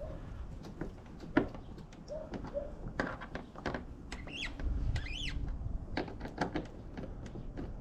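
Clicks and knocks of anchor trolley hardware and line being handled and fitted on a kayak, with two short squeaks that rise and fall about halfway through.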